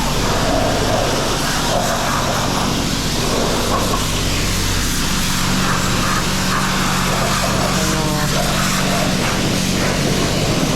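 Pressure washer running steadily: a motor hum under the continuous hiss of water spray.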